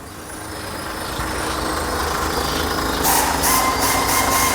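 JAC J6 engine idling with its clutch freshly replaced, the sound growing louder over the first second or so. About three seconds in, a steady whine joins the engine, with a few brief hisses.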